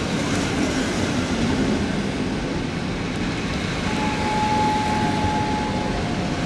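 Passenger coaches of an intercity train rolling past: a steady rumble and rattle of wheels on the rails, with a steady high squeal for about two seconds from about four seconds in.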